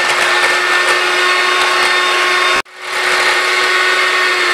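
Electric hand mixer running at a steady speed, its twin beaters whisking egg yolks with sugar and water in a glass bowl. The sound drops out for an instant about two and a half seconds in, then carries on the same.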